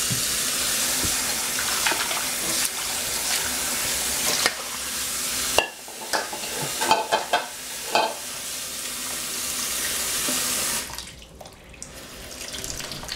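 Kitchen tap running into a stainless steel sink, water splashing over quinces in a metal bowl, with a few sharp knocks in the middle as the fruit is handled. The water sound falls away near the end.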